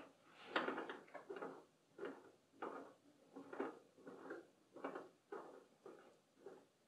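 Faint, soft rustling and tapping, about two short sounds a second, as a piece of tape is handled and pressed over the fuel tank's strainer opening.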